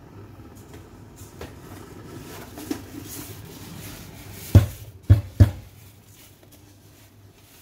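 A Breville Infuser espresso portafilter is knocked out three times, sharply, to empty the coffee puck. The last two knocks come close together. Light handling clatter comes before them.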